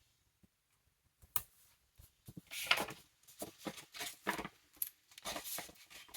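Paper planner and sticker sheets being handled: a few light taps and clicks, then short bursts of paper rustling in the second half.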